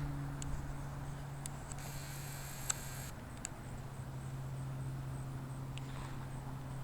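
A steady low mechanical hum, with a few faint clicks and a brief hiss about two seconds in.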